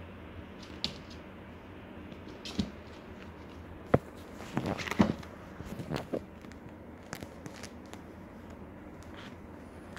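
Two young kittens scuffling and wrestling on a lap: scattered light knocks, clicks and rustles of paws and claws on cloth, busiest around the middle, over a low steady hum.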